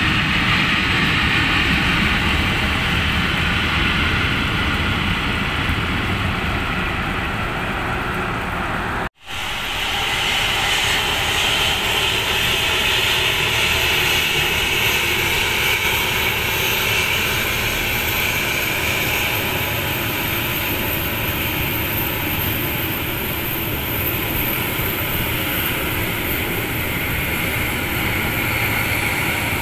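Boeing 737-800's CFM56 turbofan engines during the landing rollout on a wet, spray-covered runway. After a sudden cut about nine seconds in, the engines run steadily with a high-pitched whine as the jet taxis.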